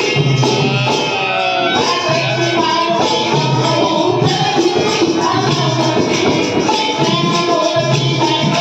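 A bhajan group singing a devotional Marathi bhajan, the voices carrying a melody over steady jingling percussion.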